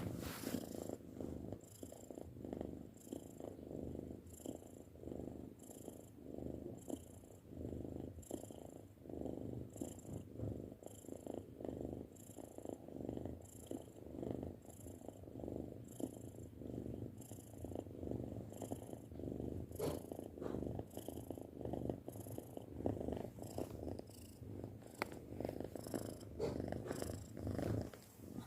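A six-month-old domestic cat purring steadily, close up, the purr swelling and fading about once a second with each in- and out-breath.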